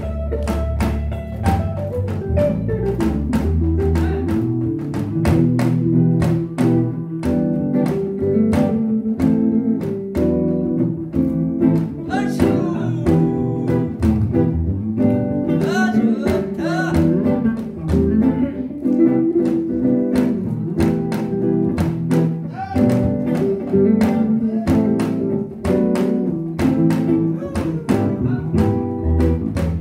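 Live jazz: an electric bass guitar playing a plucked melodic line through an amplifier, over a steady percussion beat.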